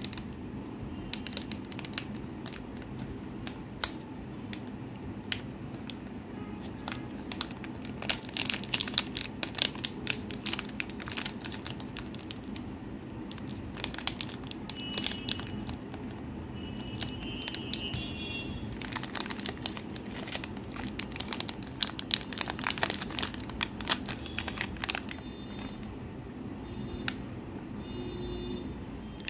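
Plastic wrapper of a Cadbury 5 Star 3D chocolate bar crinkling and tearing as it is unwrapped by hand: sharp crackles coming in busy spells, about a third of the way in and again after two-thirds, over a steady low hum.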